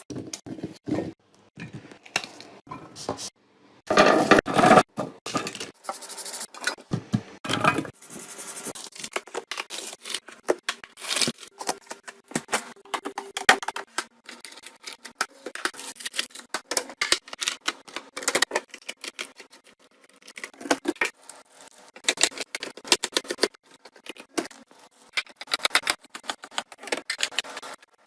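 Items being handled and set into a refrigerator: many quick clicks, taps and knocks of containers and packaging, with a louder, noisier stretch around four to five seconds in.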